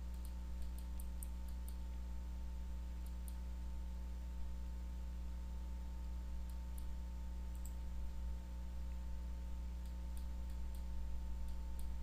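Faint computer mouse clicks, several in quick succession about a second in and a few more later, over a steady low hum.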